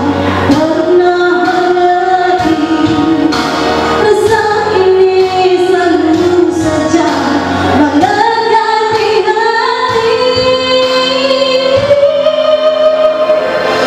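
A woman singing into a microphone over backing music. In the second half she draws out one long note that slowly rises in pitch.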